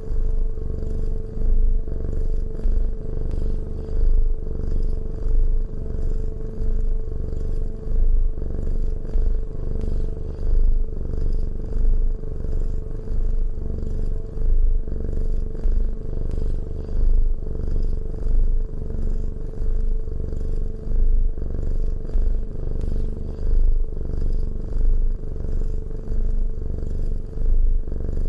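Domestic cat purring close up: a steady low rumble that swells and eases with each breath, about one cycle every couple of seconds.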